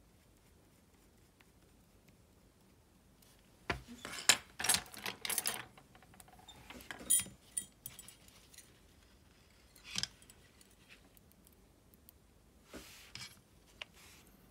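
Light metallic clicks and clinks of tweezers, a small screwdriver and tiny parts against a steel parts cup and the metal frame of a Shimano Calcutta Conquest 400 baitcasting reel being reassembled. A quick flurry of clicks comes about four seconds in, then scattered single clicks later.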